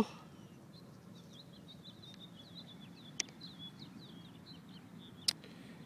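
A small bird chirping in a quick run of short, high chirps, with two sharp clicks, one about three seconds in and one near the end.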